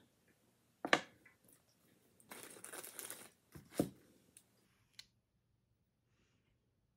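Thin plastic wrapping around washi-tape rolls crinkling and rustling as it is handled, with a few sharp clicks and a longer rustle about two seconds in.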